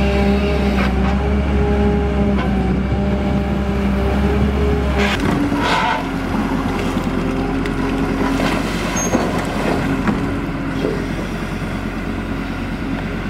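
Engine of a Pelican amphibious dredger running steadily under load, its hum changing to a different, lower pitch about five seconds in. A brief louder rush comes near six seconds.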